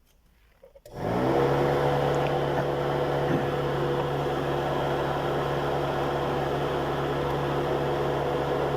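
Electric radiator cooling fan, a Toyota Carina air-conditioner fan fitted in place of a viscous-coupling fan, switching on about a second in: it spins up within half a second to a steady hum with a rush of air, then winds down near the end.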